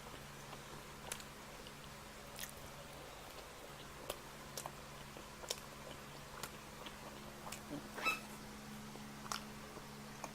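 Close-miked chewing of pizza: soft wet mouth clicks and smacks at irregular moments, with a louder smack a little after eight seconds, over a faint steady hum.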